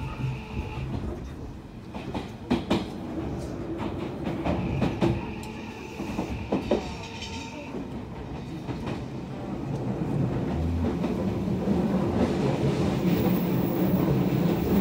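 Ride noise inside a moving commuter train: a steady rumble of wheels on rails with a few sharp clacks over rail joints, and a thin high tone for a few seconds midway. The rumble grows louder over the last few seconds.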